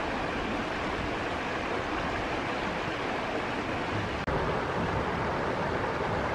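Steady rush of a fast-flowing stream running over rocks, with a brief dip about four seconds in.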